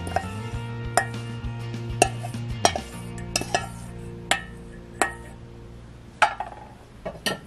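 Wooden spoon knocking and scraping against a stainless-steel mixing bowl as salad is scraped out onto a plate: about ten sharp, irregular knocks, some with a short metallic ring. Background music with held notes plays underneath.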